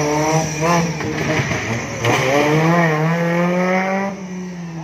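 Off-road buggy's engine revving, its pitch rising and dipping with the throttle. A strong rev comes in about two seconds in, holds for a couple of seconds and eases off near the end.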